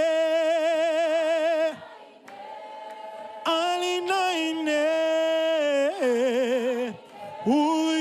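Unaccompanied singing of a worship song: long held notes with a wide vibrato. The singing dips to a quiet lull about two seconds in, then resumes with more held notes.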